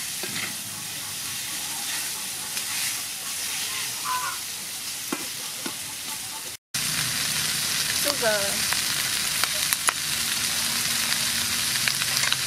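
Sliced pig ears sizzling in hot soybean oil in a metal wok, stirred and scraped with a wooden spatula. The sound cuts out for a moment about two-thirds of the way through.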